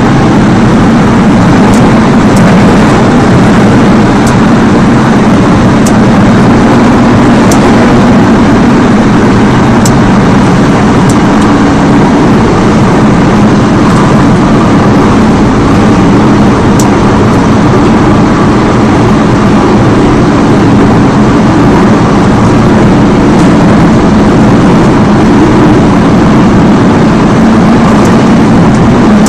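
Interior running noise of a Seoul Subway Line 5 5000-series train with ABB GTO traction equipment, heard inside the car. It is a loud, steady rumble of wheels and running gear at an even speed, with a faint steady whine and a few short sharp clicks.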